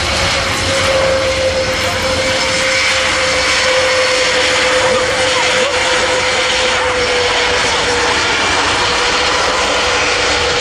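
Airbus A400M Atlas's four TP400-D6 turboprops running as the aircraft taxis along the runway. A loud, steady drone with a high whine that sinks a little in pitch as it moves past.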